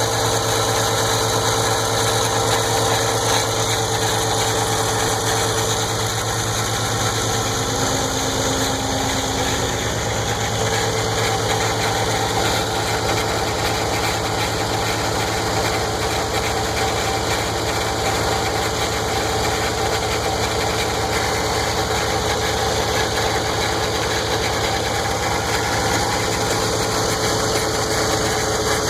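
Car engine idling steadily, with an odd noise from the cam and belt area that sounds like rubber stretching or a bearing; a steady tone runs over the engine sound, with a lower note added briefly about eight seconds in.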